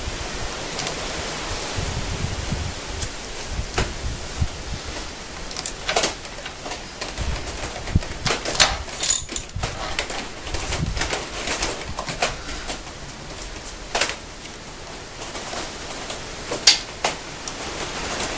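Irregular clicks and metal knocks from a wrench working the cover bolts on a Honda ANF125 Innova engine's centrifugal-filter cover, over a steady background hiss.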